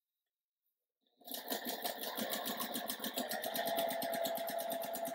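Electric sewing machine starts about a second in and then runs steadily, its needle stitching at a fast, even rate of about ten stitches a second over a steady motor whine, as it sews a seam joining rows of quilt squares.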